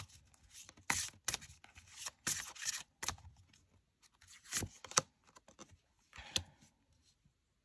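Tarot cards being shuffled and drawn from the deck: irregular short papery rustles and flicks, dying away near the end.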